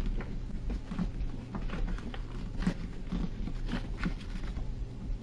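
Sheet of paper being folded and creased by hand into a paper airplane's wings: irregular soft crinkles and taps, over a low steady hum.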